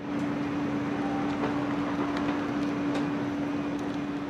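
A machine running with a steady hum, one constant low tone over a rushing noise, starting abruptly, with a few faint clicks on top.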